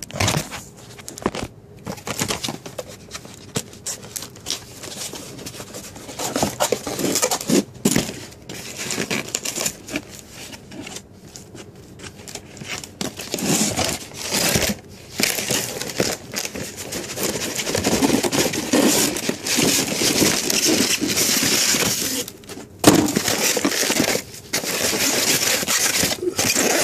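Close handling noise: crinkling and rustling with scattered clicks and knocks. It becomes louder and more continuous about halfway through.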